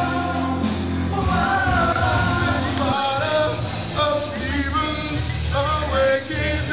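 A man singing into a microphone over backing music, amplified through a PA.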